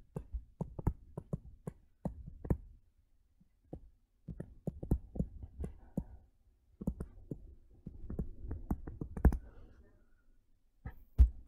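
Stylus tapping and clicking on a tablet screen during handwriting: irregular clusters of short clicks with brief pauses, and two louder clicks near the end.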